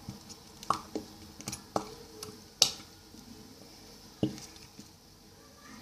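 Plastic squeeze bottle of slime glue being squeezed and handled over a bowl to empty it: a scatter of irregular sharp clicks and light knocks, the loudest about two and a half seconds in.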